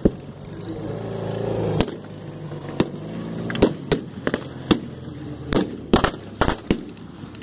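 Scattered gunshots from blank-firing weapons, about a dozen sharp cracks at irregular intervals, mixed with a sidecar motorcycle's engine running close by and growing louder over the first two seconds.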